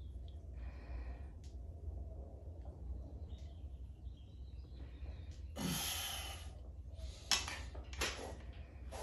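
A man breathing hard through a set of incline dumbbell presses, with a faint breath about a second in and a loud, forceful breath out about six seconds in. A sharp click follows a second later, with a smaller one just after, over a steady low hum.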